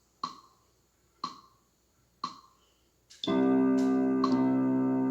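Electronic keyboard playing a song accompaniment. Three short metronome-like clicks come a second apart, then a held, steady chord comes in a little past three seconds. A click falls on each beat, and the chord changes near the end.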